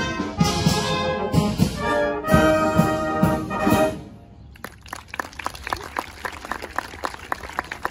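Brass band playing the final bars of a piece, ending on a loud held chord that cuts off about four seconds in. Scattered applause follows.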